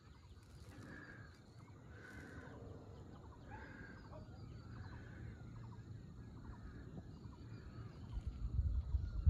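Birds calling in the distance: short calls repeated about once a second, with small chirps between them. Wind rumbles on the microphone, picking up near the end.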